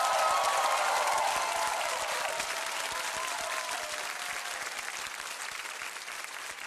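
Studio audience applauding, with a few voices calling out early on, gradually dying down.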